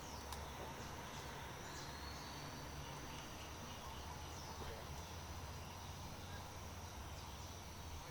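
Quiet outdoor background: a faint even hiss with a thin, steady high-pitched tone and a few faint short chirps.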